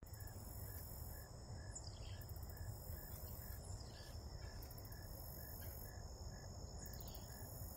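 Faint outdoor nature ambience: a steady high insect buzz with a short chirp repeating about twice a second, three high falling bird calls, and a low rumble underneath.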